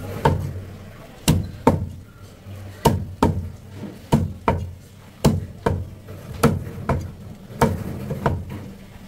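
Cleaver chopping a whole Asian sea bass into steaks on a round wooden block: sharp knocks of the blade through the fish and into the wood, mostly in pairs, a pair a little more often than once a second.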